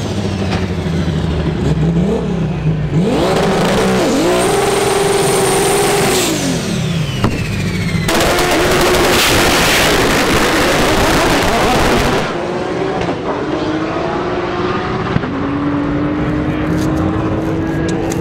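Front-wheel-drive drag car's engine revving up and holding high revs on the line, then a sudden full-throttle launch with wheelspin, very loud for about four seconds before fading as the car pulls away down the track.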